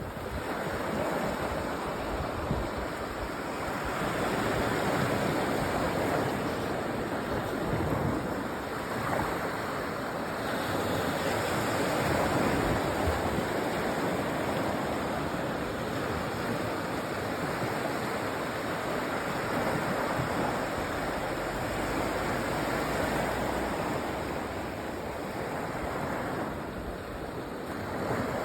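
Sea waves breaking and washing up a sandy beach: a steady wash of surf that swells and eases every few seconds.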